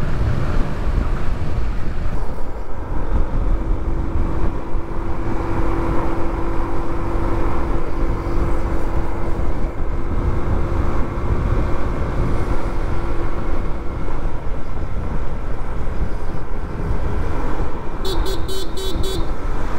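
Riding noise on a motorcycle: steady wind and engine rumble, with a steady hum holding for about ten seconds in the middle. Near the end a horn beeps about five times in quick succession, a warning at a truck turning across without signalling.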